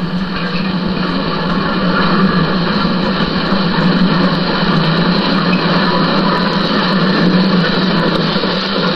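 Model steam locomotive and its train running along the layout's track: a steady, loud whirring and rumbling of motor and wheels on rail.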